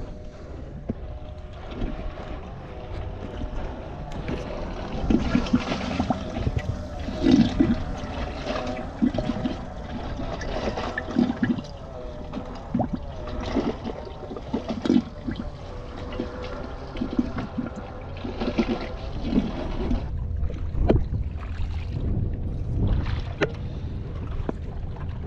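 Water sloshing and trickling in a kayak's live bait well, in uneven splashes.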